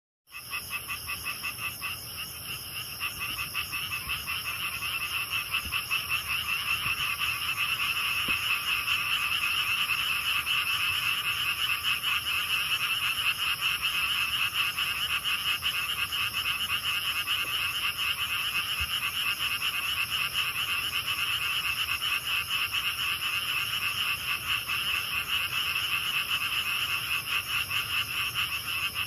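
Night chorus of many frogs calling at once in dense, rapid pulsing trills. Grass insects keep up a steady high-pitched ringing above them. The chorus swells over the first several seconds, then holds steady.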